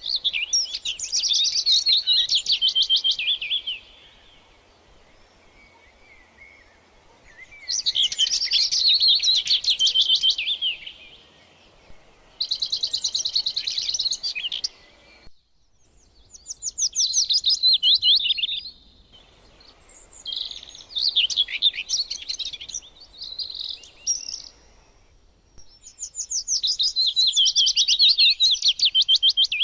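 Songbird singing in repeated phrases of rapid, high trills: six phrases a few seconds long, with short pauses between them.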